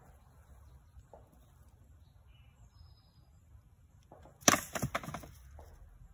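A primitive trap being sprung: a wooden log drops and hits the trigger sticks and ground with one sharp knock about halfway through, then knocks a few more times as it bounces and settles.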